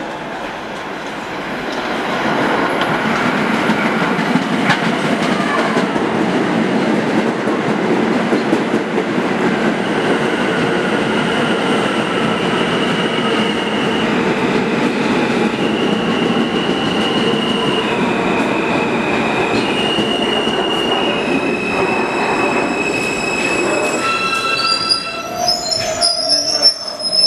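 New York City Subway R160A train arriving and braking to a stop: a rising rumble of wheels on the rails, then its electric motors whining in steady tones that jump in pitch step by step as it slows, and high squeals from the wheels and brakes near the end as it comes to a halt.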